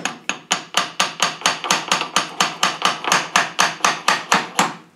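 Rapid, even hammer taps, metal on metal, about five a second, stopping near the end: a stuck part on an R380 gearbox shaft being tapped to work it free.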